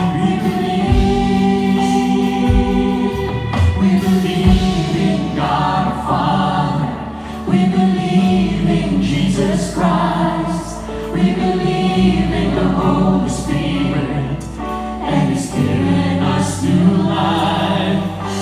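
Live worship music: a mixed choir singing with a band, the voices over deep held bass notes that change every few seconds.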